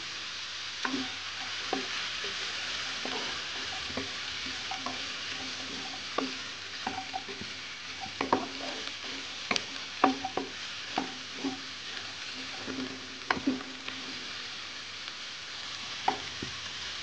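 Chicken and vegetables sizzling in hot oil in a wok, stirred with a wooden spatula that scrapes and knocks irregularly against the pan, the knocks coming most often in the middle stretch.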